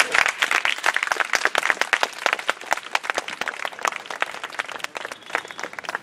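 A small crowd clapping in applause, dense at first and thinning out near the end.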